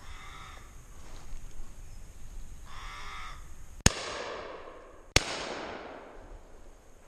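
A corvid calls twice, then two shotgun shots go off just over a second apart, each ringing away through the trees.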